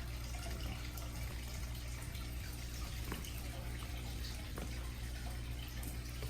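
Steady background hiss with a low hum underneath, broken by a couple of faint clicks.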